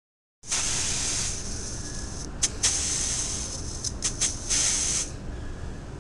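Compressed air hissing out of a wheelchair air shock through the shock pump fitted to its valve, as the pressure is let down toward 30 psi. It starts strong, eases after about a second, then comes in several short bursts with a few sharp clicks, and stops about five seconds in.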